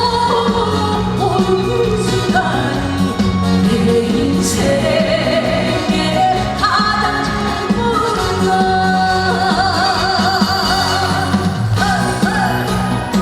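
Live trot song: a woman singing with heavy vibrato over a full backing band with a steady beat.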